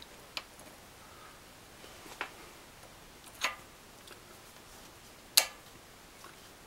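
A few sharp metal clicks as a small steel angle bracket is set against the lathe's cross slide, about four in all at uneven gaps. The loudest comes about five and a half seconds in, as the bracket's neodymium bar magnet snaps onto the steel.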